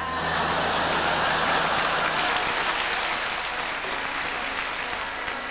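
Studio audience applauding, a dense sound of clapping that starts all at once and gradually dies down.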